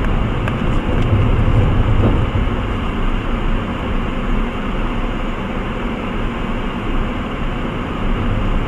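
Steady low engine and road noise of a car driving, heard from inside its cabin.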